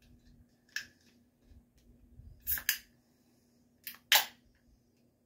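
Clicks and taps from handling a Foster's beer can, ending in a sharp crack about four seconds in, the loudest sound, as the ring-pull is opened.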